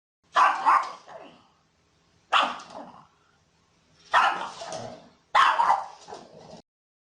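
Pug barking in four short bouts, each of two or three quick barks.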